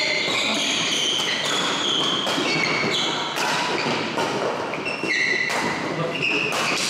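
Badminton doubles rally on an indoor court: many short, high squeaks from court shoes on the floor, mixed with the sharp taps of rackets striking the shuttlecock.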